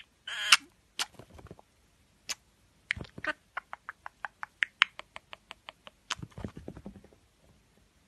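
Budgerigar chattering in short chirps and clicks: a brief chirp just after the start, then a quick run of clicks and chirps, a few a second, in the middle.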